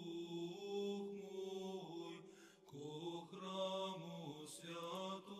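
Faint background chant: slow, sustained singing over a held low note, with a brief pause about two and a half seconds in.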